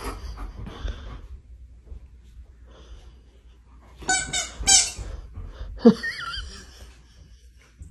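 Rubber squeaky toy squeezed in a dog's mouth: two short squeaks about half a second apart, then a louder, wavering squeak a second later, a three-part pattern that sounds like 'W-T-F'.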